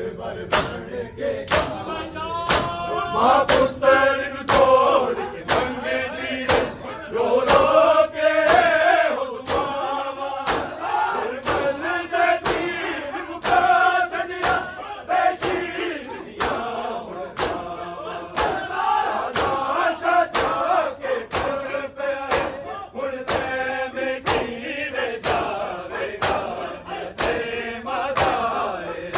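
A crowd of men chanting a noha in unison, with the sharp slaps of their hands beating their chests (matam) keeping a steady beat.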